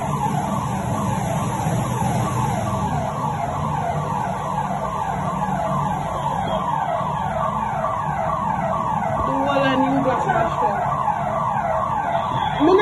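An electronic alarm siren sounding a falling tone, repeated several times a second, over a steady low hum.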